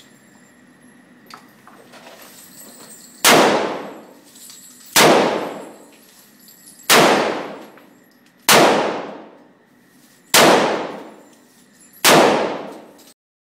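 Large-calibre revolver fired six times, one shot every one and a half to two seconds, each shot ringing on in a long echo off the indoor range's walls.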